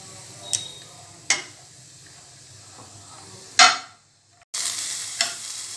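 Spatula stirring diced onion and capsicum in a wok over a faint sizzle of frying oil, with about four sharp scrapes and knocks against the pan, the loudest about three and a half seconds in. The sound drops out for half a second just after it.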